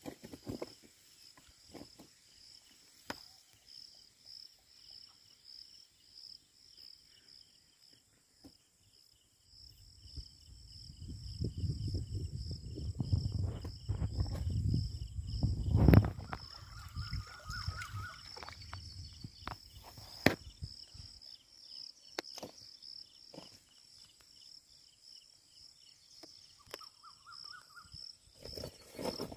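Insects chirring in a steady, pulsing high drone throughout. A low rumbling on the microphone runs through the middle and is loudest about sixteen seconds in, with scattered light clicks around it.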